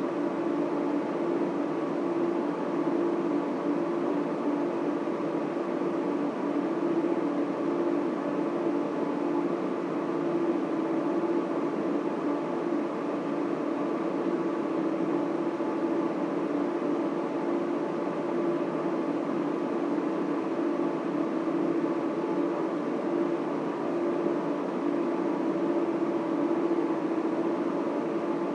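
Data center equipment running steadily: a continuous whir of server and cooling fans with a strong hum and several fixed tones over it.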